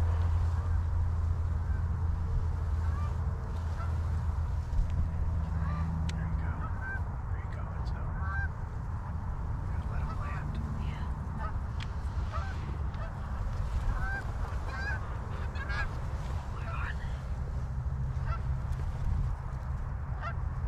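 A flock of Canada geese honking, many short calls overlapping, busiest in the middle stretch. Under them runs a steady low rumble of wind buffeting the microphone.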